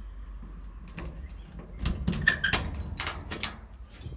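Keys rattling as a small key is worked in a shed door lock and the door is opened, a run of sharp clicks and rattles starting about a second in.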